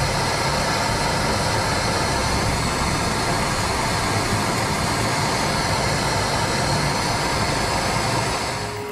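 Handheld gas torch burning with a steady, loud hiss of the flame as it heats a copper pipe fitting for soldering; the flame sound stops just before the end.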